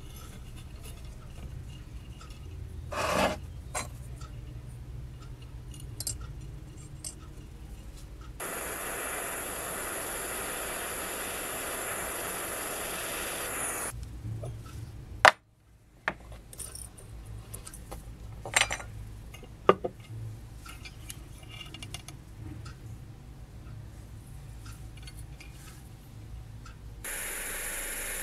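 Handwork with thin metal wire and small brass weights on a soldering board: scrapes, light metallic clicks and a few sharp taps as the wires are pinned and the weights set down. A steady hiss runs for several seconds in the middle, and near the end a small butane soldering torch hisses steadily.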